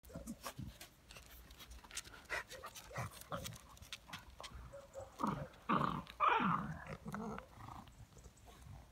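Chow chows play-fighting: light scuffling at first, then a run of short, loud play growls about five to seven seconds in.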